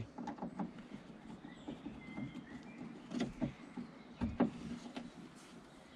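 Hand screwdriver tightening the mounting screws of a car window motor on its regulator inside a bare door: faint scattered clicks and small metal knocks, with a few sharper taps near the start, about three seconds in and about four and a half seconds in.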